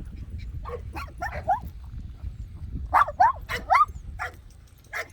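Dog barking in short bursts: a few barks about a second in, then a louder run of four quick barks around three seconds in, and a couple more near the end.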